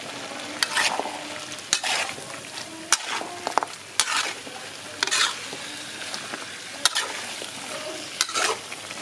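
Pork ribs and vegetables in sauce sizzling in a wok, with a steady hiss. A spatula scrapes and knocks against the pan about once a second as the food is stir-fried.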